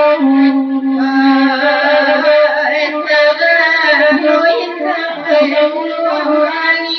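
A woman singing a traditional Minangkabau saluang song, her voice bending in pitch, over a saluang bamboo flute holding steady notes.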